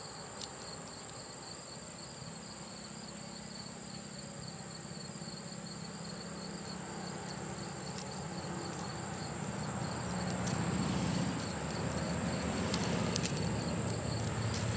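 Crickets chirping steadily in a fast, even pulse with a high, constant trill above it. A low rumble grows louder through the second half.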